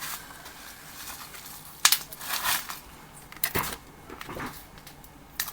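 Sharp clicks and taps of small tools and phone parts handled on a work surface during an iPhone repair: three louder clicks roughly a second and a half apart, with soft scraping between them.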